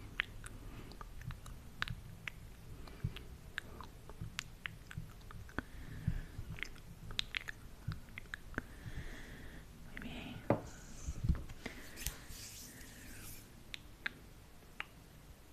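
Close-miked ASMR mouth sounds: a steady run of small wet clicks and smacks, with a few short soft hisses about nine and twelve seconds in.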